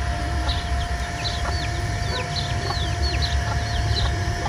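Chicks peeping over and over: short, high, falling peeps about three a second, with a steady faint hum underneath.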